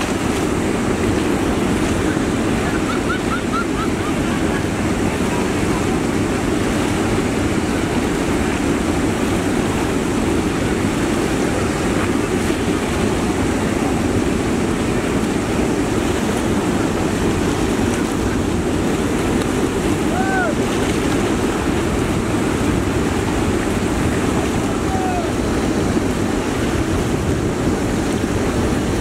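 Water pouring over a dam spillway and churning in the river below: a steady, loud rushing of water. A few short high calls rise over it, about three seconds in and again around twenty seconds in.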